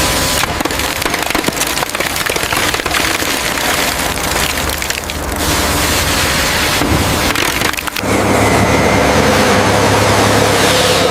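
Dense crackling and splintering noise for about eight seconds, then a sudden switch to a steady low rumble with a rushing sound.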